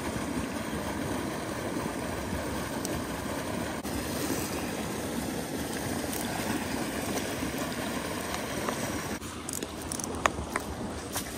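A small spring creek running fast over a riffle, a steady wash of water. About nine seconds in the wash falls away and a few sharp crunches follow: footsteps in snow.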